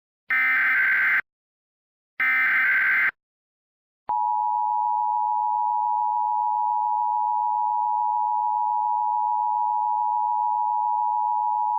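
Emergency Alert System signalling: the last two of three SAME header data bursts, each just under a second of buzzing data tones, about a second apart. About four seconds in, the steady two-tone EAS attention signal starts and holds, marking the start of a new alert.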